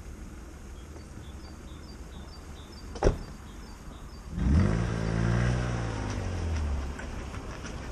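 A car door slams shut, then just over a second later the BMW E36's stroked M50B30 straight-six engine comes up loudly and revs as the car pulls away.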